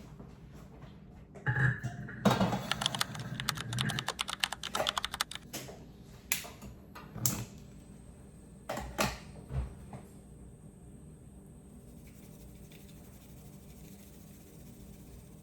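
Typing on a computer keyboard: a fast run of key clicks for about four seconds, then a few separate, louder taps, then the room goes quiet.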